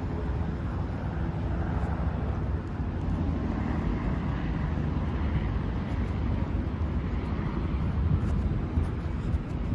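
Steady low rumble of city background noise, with no clear single event standing out.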